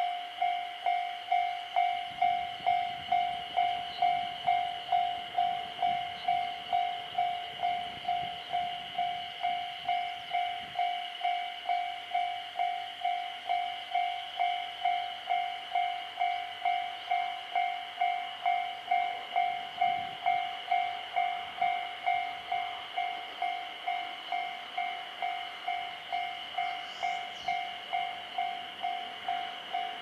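Japanese railway level-crossing alarm ringing in an even, repeating rhythm, the signal that a train is approaching and the barriers are down.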